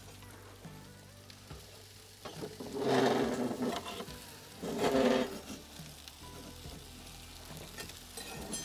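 Metal sheet pan of roasted vegetables scraped across the floor of a wood-fired brick oven, two loud rasps about three and five seconds in, with the hot vegetables sizzling.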